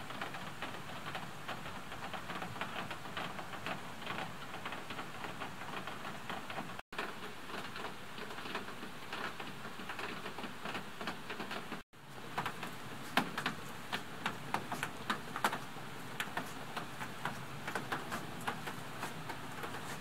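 Small mountain stream running below a footbridge: a steady crackling trickle of water, with sharper splashing clicks from about twelve seconds in.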